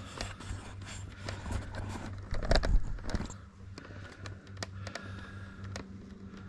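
Handling and movement noise picked up by a helmet-mounted camera as the wearer gets onto a bicycle: scattered clicks and scrapes, with a louder rustling bump about halfway through, over a steady low hum.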